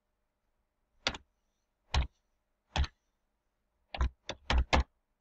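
Computer keyboard keystrokes: three single key presses about a second apart, then a quick run of five.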